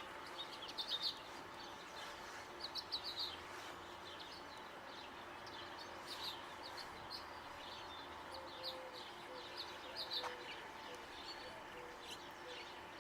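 Small birds chirping in several short runs of quick high notes, over a faint steady outdoor background.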